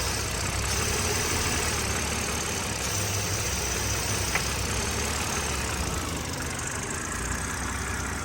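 BMW N52 straight-six idling with a steady hiss from the intake manifold area while the oil filler cap is open, the sort of vacuum leak the owner suspects is a blown PCV valve. The hiss weakens about six seconds in, and there is a single sharp click about four seconds in.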